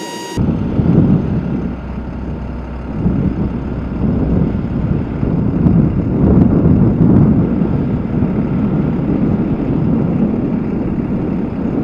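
Four-engine turboprop roar of a C-130 Hercules at takeoff power as it rolls down the runway and lifts off: a loud, steady, deep rumble that starts abruptly about half a second in and grows a little louder after a few seconds.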